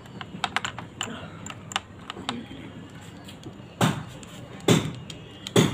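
Small accessory parts clicking and rattling as they are picked out of a rotary tool kit's plastic case, then three louder knocks about a second apart as a brass wire brush is fitted to the die grinder.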